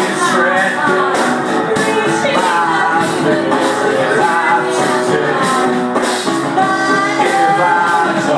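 Live rock-pop music: singing over a band with guitar and a steady beat of drums and cymbals.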